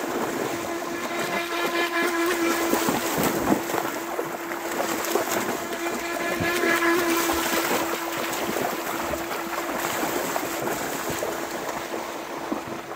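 Small radio-controlled jet boat running on the river: a steady, even-pitched motor and jet-pump whine that holds throughout, with water splashing around it.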